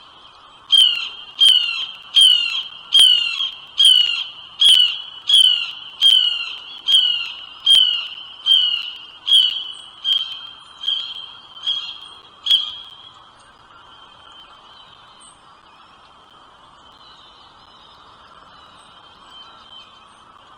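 A bird giving a loud series of about fifteen sharp, evenly spaced calls, a little over one a second, each dropping in pitch; the series fades and stops about two-thirds of the way through, leaving a faint steady high hum.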